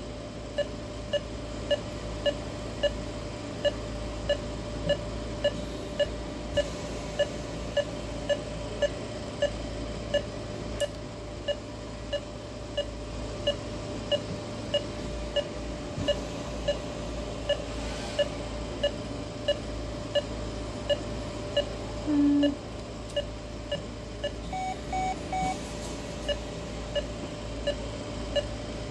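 Anesthesia patient monitor beeping once per heartbeat, an even pulse-oximeter tone about every 0.6 s (around a hundred a minute) over a low steady hum. About 22 s in a brief lower tone sounds, and near the end three quick higher beeps.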